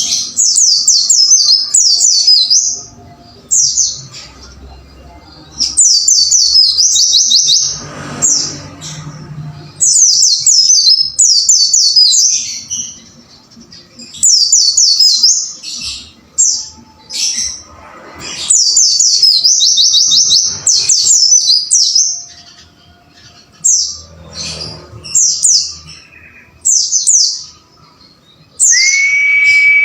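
Pleci (white-eye) singing: rapid high chirping phrases of a second or two each, repeated again and again with short pauses between. Near the end a brief steady, lower whistle-like tone sounds.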